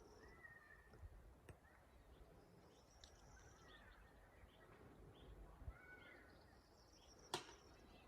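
Faint bird calls: short arching chirps repeated every second or two, with thinner, higher calls above them. A single sharp click comes about seven seconds in.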